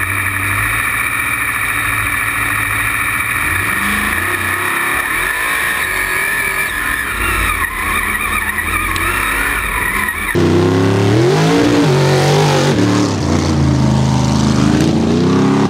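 Mega truck's race engine under hard throttle, first heard from inside the open cab as a steady loud drone with a high whine. About ten seconds in, the sound switches abruptly to the engine heard from outside, revving up and down with its pitch rising and falling as the truck works through the hole.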